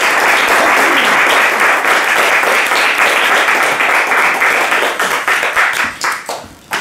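Audience applauding steadily, then dying away in the last second or so.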